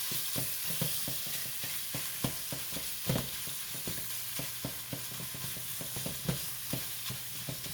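Ground beef and onions sizzling as they brown in a skillet, stirred with a utensil that clicks and scrapes against the pan many times.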